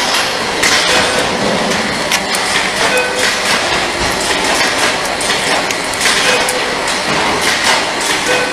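Connector soldering machine running: a steady mechanical clatter with frequent sharp clicks and knocks.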